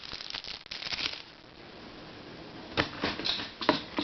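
Plastic puzzles being handled: a quick run of small clicks and rustling, then a few sharp clicks near the end as pieces are set down and picked up.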